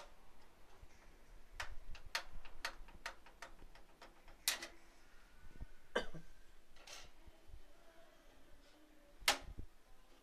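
Irregular sharp clicks and taps of PC parts being handled during a build. There is a quick run of small ticks about two to four seconds in, then a few louder knocks, the loudest near the end.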